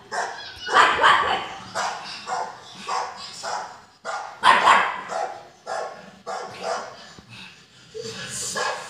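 A pug barking over and over, short sharp barks about two a second, with a brief lull near the end.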